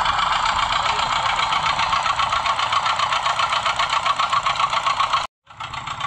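Small engine of a miniature working-model cement concrete mixer running steadily with a rapid, even pulsing. The sound breaks off for a moment about five seconds in, then carries on.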